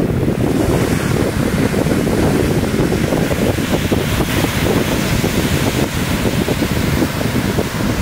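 Ocean surf breaking: a rushing whitewater hiss that builds about half a second in and carries on, over a low rumble of wind buffeting the microphone.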